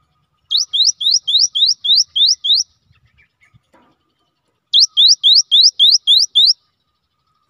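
Cinereous tit (gelatik batu) singing its 'wucit-wucit' song: two runs of seven or eight sharp, rising whistled notes, about four a second, with a pause of about two seconds between them.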